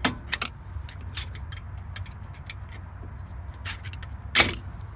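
Scattered metal clinks and scrapes of a pry tool working against the rusty brake caliper and bracket of a 1997 Jeep Grand Cherokee, levering its metal retaining spring tab loose, with one sharper, louder clink near the end. A steady low rumble runs underneath.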